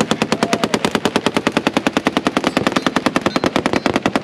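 Machine gun firing a long burst of full-auto fire, an even stream of about ten shots a second without a break.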